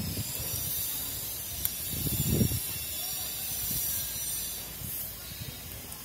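Large twig broom sweeping a paved stone path, its bristles swishing across the paving in strokes.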